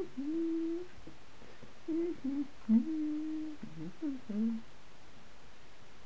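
A person humming a wordless tune in held notes with small slides between them, stopping about four and a half seconds in.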